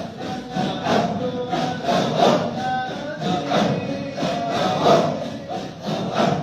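A group of voices chanting dhikr together in a repeated rhythmic phrase, with a strong breathy accent about every 1.3 seconds.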